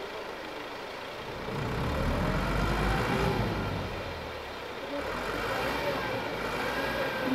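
Tractor diesel engine labouring under load as it tries to haul a loaded trolley out through a river, getting louder about a second and a half in, then easing back.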